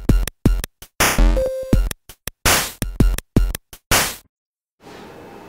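Electronic music with a drum-machine beat of sharp hits and a falling synth sweep about a second in. It cuts off suddenly about four seconds in, and a faint steady room hiss follows.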